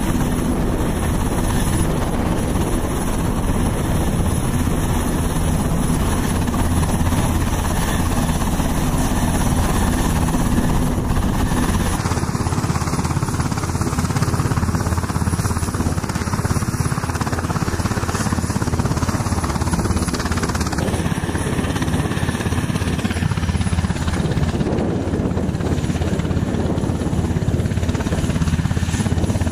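Tracked armoured ambulance's engine running with a steady low rumble.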